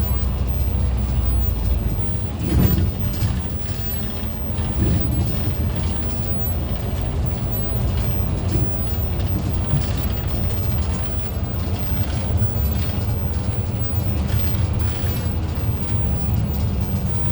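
City bus in motion: steady engine and road rumble, with a short louder knock about two and a half seconds in.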